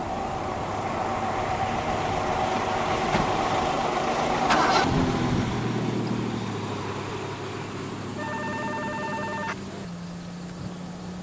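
An old Ford L-series flatbed truck driving past on pavement. The engine and tyre noise swell to a loud peak about four and a half seconds in, then settle to a lower steady engine hum as it moves on. A short pulsing beep sounds about eight seconds in.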